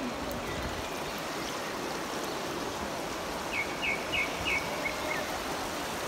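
Steady rush of river water flowing around boulders at the river's edge. A little past halfway a bird gives a quick run of about five high chirps.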